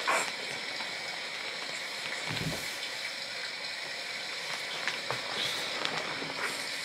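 A steady hiss, even and unbroken, with a soft low thump about two and a half seconds in.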